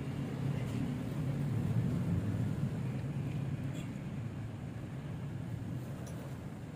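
Minerva R150 motorcycle engine running steadily: the rough engine noise under diagnosis. The level swells a little about two seconds in, then eases back.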